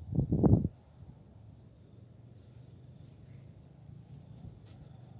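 Insects in the field trilling steadily at a high pitch, after a short loud burst in the first second.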